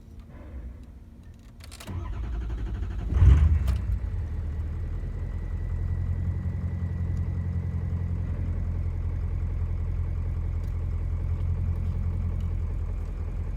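Ford F-250 engine being started: the starter cranks for about a second and a half, the engine catches with a rev about three seconds in, then settles into a steady idle with a faint whine. The truck has a hard-starting problem.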